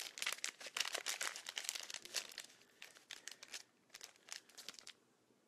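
Crinkly packaging being handled: a dense run of crackles that thins out after about three and a half seconds and stops near the end.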